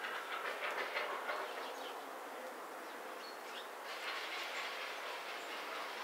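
Outdoor background of dense, crackly chatter that eases a little in the middle, with a couple of faint short high calls about three seconds in.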